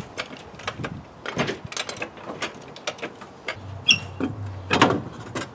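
Metal clicks and clinks from a wrench and wheel bolts while a car's steel wheel is unbolted and pulled off its hub, with a ringing metallic clink about four seconds in and a louder scuff near the end.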